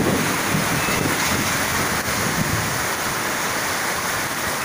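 Heavy rain pouring steadily onto roofs, with uneven low rumbles of wind on the microphone.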